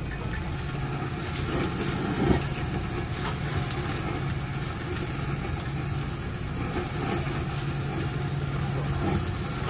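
Meat sizzling and spitting over flaring flames on a tabletop yakiniku grill, over a steady low hum. A single clack of metal tongs comes a little after two seconds in.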